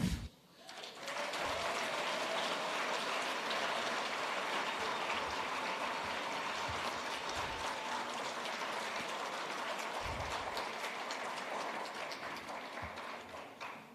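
Audience applauding steadily, starting about a second in and dying away near the end.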